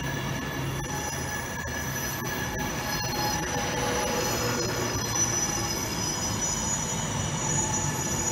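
Passenger train moving slowly past the platform, its wheels squealing on the rails in several steady high-pitched tones over a low rumble.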